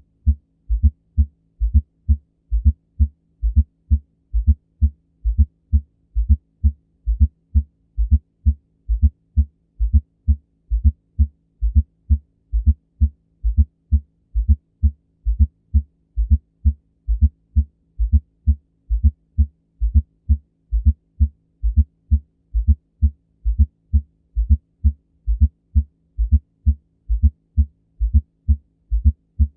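Heartbeat with an S4 atrial gallop: low, dull thuds repeating in an even rhythm, with an extra sound late in diastole as the atria contract, just before each first heart sound.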